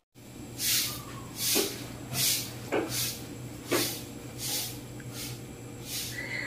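A woman's near-silent laughter: breathy, hissing exhalations about once every three quarters of a second, over a low steady hum.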